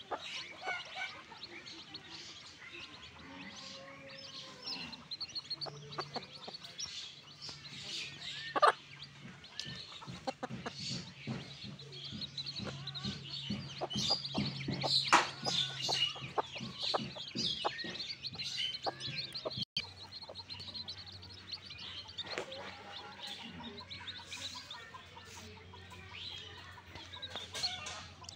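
A brood of newly hatched chicks peeping constantly in quick, high chirps, with the mother hen clucking among them; a few calls stand out louder about a third and halfway through.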